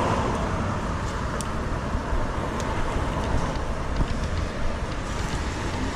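Steady road traffic noise from a busy multi-lane city avenue, cars passing.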